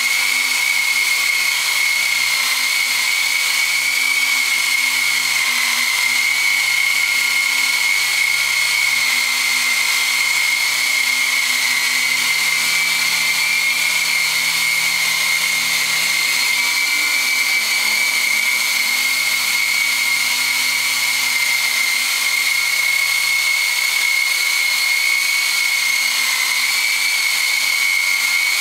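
Small electric coaxial model helicopter in flight, its motors and gears giving a steady high-pitched whine that wavers slightly in pitch, over a whirr of the rotor blades.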